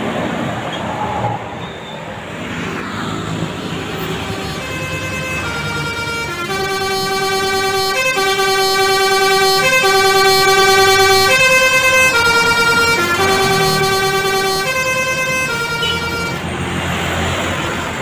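Telolet Basuri musical bus horn playing a tune of held notes that step up and down in pitch. It starts about four seconds in and runs for about twelve seconds, over bus engine and traffic noise.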